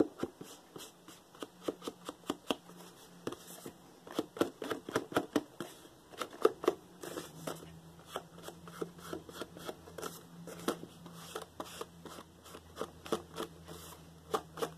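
Ink blending tool dabbed and brushed rapidly along the edges of a paper pouch, making quick irregular taps and scuffs, several a second, along with paper handling.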